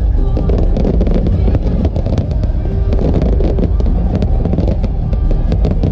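Fireworks display: a dense run of sharp cracks and bangs over a continuous low rumble, with music playing along.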